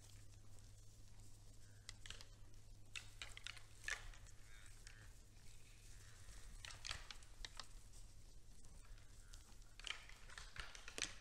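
Faint scattered crackles and clicks of red deer feeding in snow: hooves crunching and hay being pulled, over a steady low hum.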